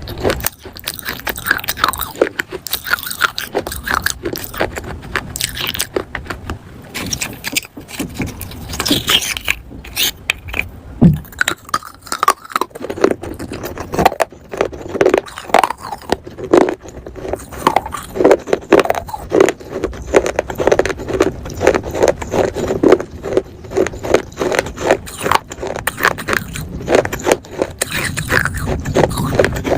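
Close-miked biting and chewing of pieces of baked clay pot: a rapid, irregular run of sharp, gritty crunches, coming faster and more evenly in the second half.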